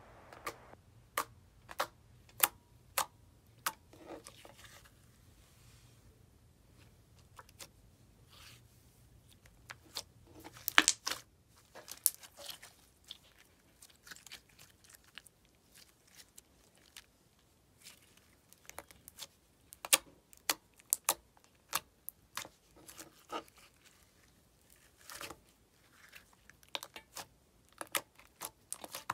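Slime being poked, pressed and stretched by fingers, giving irregular sticky clicks and pops, with denser flurries about eleven seconds in and again around twenty seconds.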